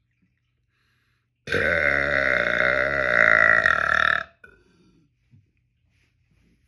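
A man's deliberate, loud, long burp: one continuous low-pitched belch of nearly three seconds, starting about a second and a half in, its pitch wavering as it goes.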